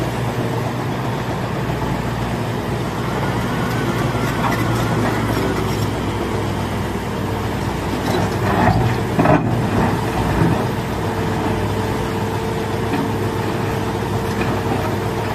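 Diesel engine of a Liebherr R945 crawler excavator running steadily under working load, with a burst of clattering knocks about nine seconds in.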